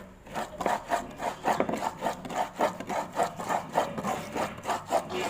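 Spice paste being ground with a stone pestle in a mortar: rhythmic rubbing, grinding strokes, about four a second.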